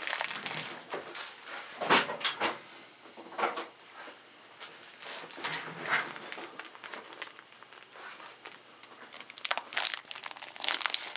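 Thin plastic wrapping around a gun-cleaning cloth crinkling and rustling in irregular bursts as it is handled, with scissors cutting into the plastic near the end.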